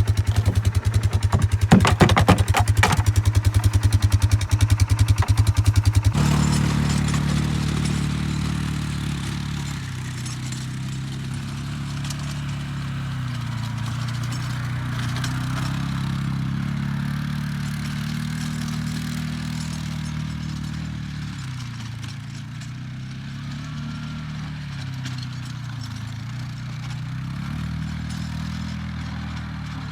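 Farm vehicle engine running while spreading magnesium oxide dust on pasture. It pulses fast and loud for the first six seconds, then changes abruptly to a steadier note that rises and falls with engine speed as the vehicle works.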